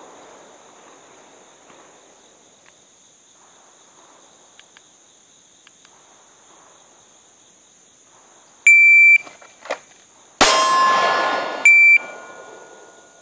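Shot timer beeps, and about 1.7 seconds later a single pistol shot goes off, with a long echo, on a timed draw from concealment that the timer reads as 1.76 seconds. A second identical timer beep follows about a second after the shot.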